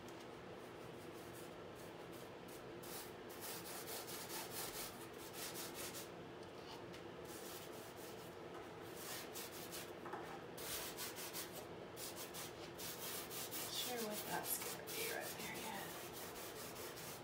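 Paintbrush scrubbing paint onto a canvas in quick back-and-forth strokes, coming in several bursts with short pauses between them.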